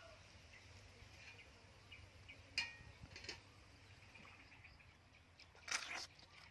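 Faint outdoor background noise, broken by a sharp click about two and a half seconds in, a couple of smaller clicks, and a short noisy burst near the end.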